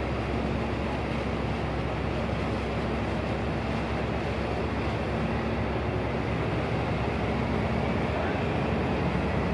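Austal 40m high-speed catamaran's diesel engines and waterjets running steadily as it pulls away from its berth: a low drone with a water-wash hiss, and a faint whine rising near the end as it powers up.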